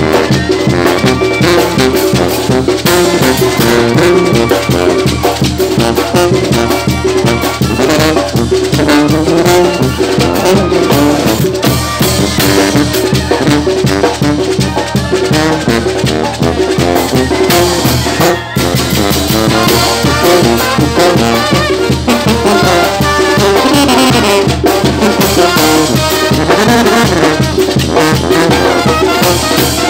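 Live Mexican brass band (banda) playing: trumpets and trombones over snare drums, cymbals and congas.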